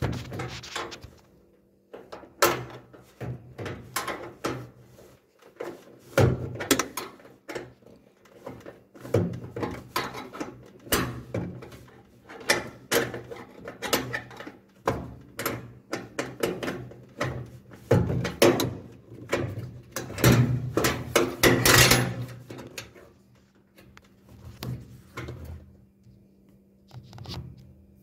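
Wrench clinking and knocking on the shock absorber mounting bolt of a front-load washing machine, an irregular run of metal clicks and clanks with a dense flurry of knocks about two-thirds through.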